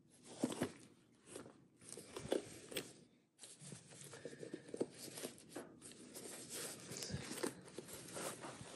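A cotton dust bag being unfolded and handled: cloth rustling with scattered soft knocks and scrapes as the wallet inside is uncovered, with a short pause about three seconds in.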